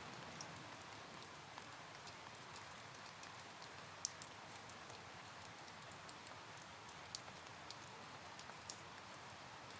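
Faint steady rain, with scattered drops tapping sharply on a surface, a few of them louder, about four seconds in and again a little after seven seconds.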